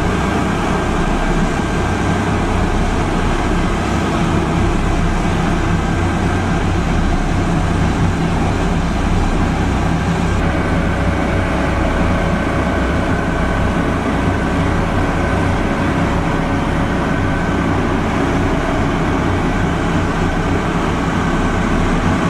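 A steady, unchanging vehicle engine drone with a low hum.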